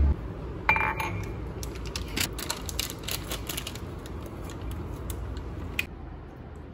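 Quick, irregular light clicks and clinks of a ceramic mug being handled, starting just after a short electronic beep and ending in one sharper click near the end.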